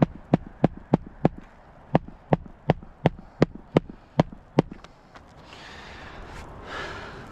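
Hammer driving a roofing nail through an asphalt shingle: about a dozen quick, sharp strikes, roughly three a second, with a short pause after the first few, stopping about five seconds in.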